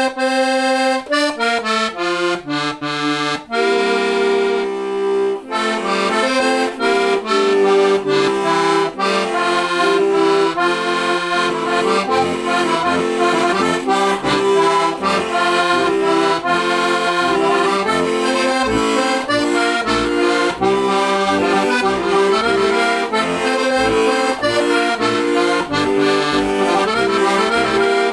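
Heligonka, a Slovak diatonic button accordion by Juraj Krahulec in C-F tuning with brass Tipo a mano reeds, playing an instrumental folk-tune introduction: a melody in chords on the treble buttons, with the steady bass accompaniment coming in about six seconds in.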